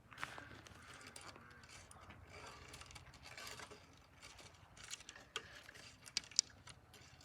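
Plastic garden fence netting being handled and pulled into place: irregular rustling and crinkling with scattered sharp clicks and taps, the loudest two clicks about six seconds in.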